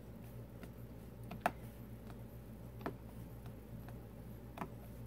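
Drill pen tapping diamond-painting drills onto the sticky canvas: a sharper click about every second and a half, with fainter small ticks between, over a low steady hum.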